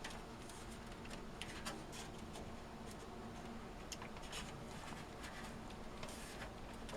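Faint, scattered light clicks and scrapes of a motherboard being shifted into a PC case and pushed against the I/O back plate, meeting resistance.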